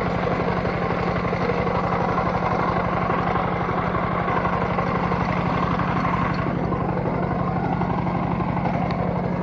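A steady, unchanging machine-like hum with a low buzzing drone.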